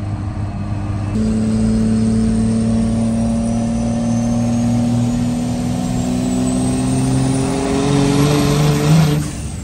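First-gen Cummins 5.9-litre 12-valve inline-six turbo diesel pulling hard under full throttle from about a second in, its note climbing slowly as the truck gains speed, with a high turbo whistle rising above it. The throttle is let off just before the end and the sound drops away.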